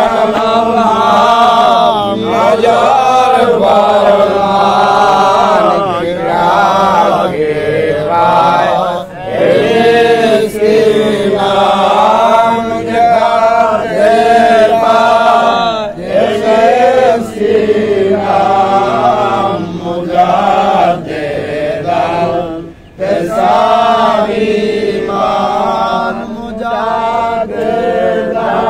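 Men chanting together in a loud, continuous, melodic religious chant, with a short break about three quarters of the way in.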